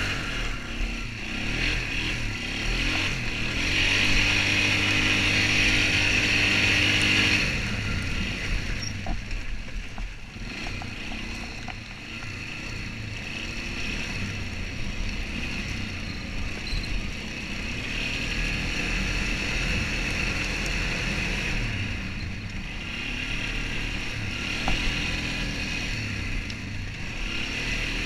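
Quad ATV engine running under throttle while being ridden over dirt and mud. It pulls harder and louder from about four to seven seconds in, eases off around eight seconds, then runs steadily.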